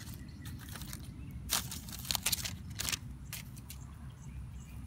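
Handling noise from pieces of a smashed phone: a few short, sharp clicks and crackles as the fragments are handled and tossed into the grass, over a low steady rumble.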